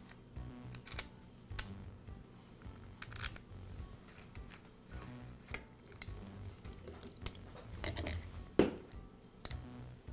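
Hex key turning the cap screws on a Ridgid finish nailer's cylinder cap: a scattered run of small metallic clicks and scrapes, with one louder knock about eight and a half seconds in.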